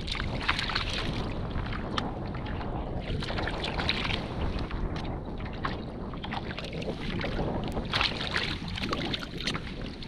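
Wind buffeting the microphone over choppy water slapping against a sit-on-top kayak, with short sharp splashes now and then as hooked pejerrey thrash at the surface.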